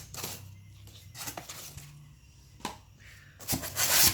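Packaging being handled during an unboxing: a few short rustles and knocks of paper and cardboard, then a longer, louder rustle near the end.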